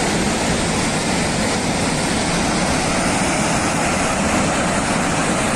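Floodwater rushing in a loud, steady roar that never lets up.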